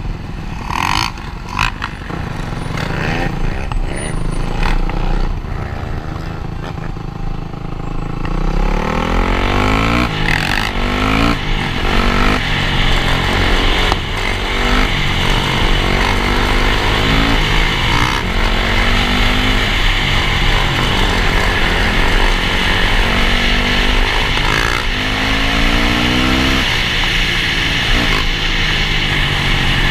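Dirt bike engines running and accelerating through the gears, the pitch climbing again and again and dropping at each shift, with wind rushing over the microphone. The first several seconds are steadier, lower running before the acceleration starts about eight seconds in.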